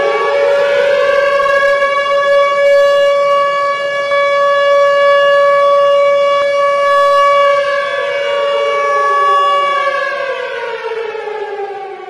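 Civil-defense (air-raid) style siren sound effect: a single loud wailing tone reaches its top pitch just after the start, holds it steady for about eight seconds, then winds down with a falling pitch and fading level near the end.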